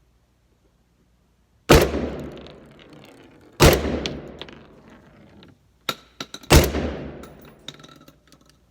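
Three shotgun blasts from an AR12 12-gauge semi-automatic shotgun, about two to three seconds apart, each trailing off in a long echo. A fainter sharp crack comes just before the third shot.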